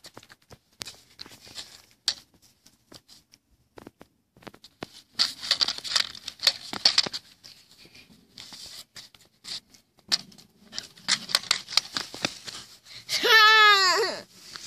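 A child's pogo stick clicking and rattling against an asphalt driveway in short runs of bounces, with scattered single clicks in between. Near the end a young girl gives one long high-pitched squeal of delight.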